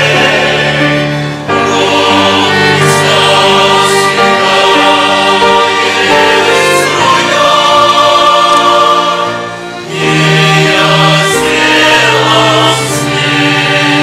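A choir singing a Russian-language hymn in long held chords, accompanied by violins, with short breaks between phrases.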